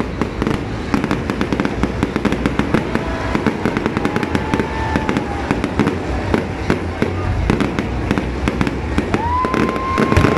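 Fireworks display: a rapid, continuous crackle of many small bangs from bursting aerial shells, over a low rumble.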